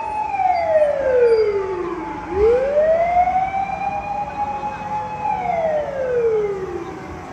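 Fire engine siren wailing: a held high tone that falls away over about two seconds, climbs back up, holds, then falls again near the end.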